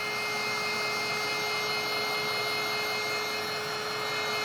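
Small heat gun blowing steadily, a steady whir with a faint hum and whine, warming a line of UV resin.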